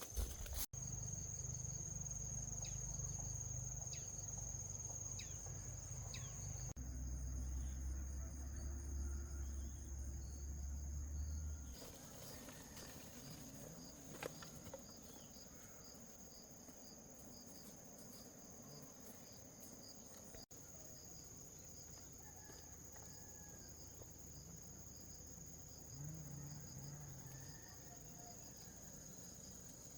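Insects droning in one steady high-pitched note, with a low rumble underneath for about the first dozen seconds.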